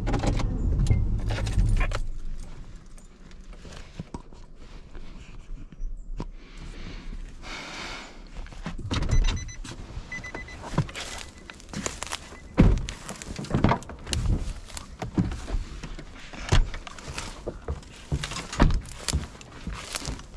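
Pickup truck engine idling and then shut off about two seconds in, followed by the driver's door being opened with keys jangling and a few thunks, then footsteps on grass and dirt at about one step a second.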